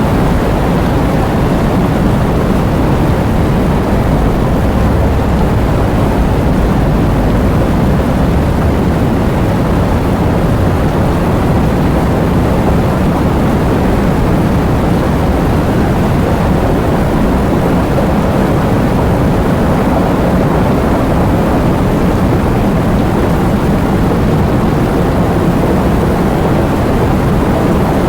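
Heavy rain falling: a steady, dense rushing hiss, weighted toward a deep low rumble rather than bright patter.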